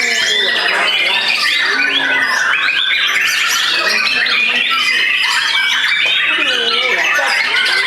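Several caged white-rumped shamas singing loudly over each other in competition, a dense unbroken mix of rapid whistles, trills and swooping phrases.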